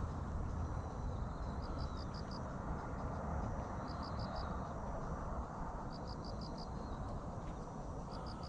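A cricket chirping in short groups of about four quick pulses, repeating roughly every two seconds, over a steady low rushing background noise.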